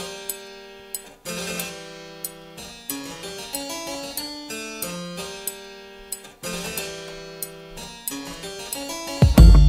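Background keyboard music with quick, plucked, harpsichord-like notes, each dying away. A loud deep boom comes in near the end.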